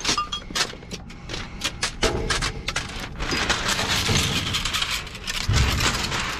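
Shards of a cracked mirror clinking and scraping as the broken glass is worked out of its round metal frame. A dull thump comes near the end.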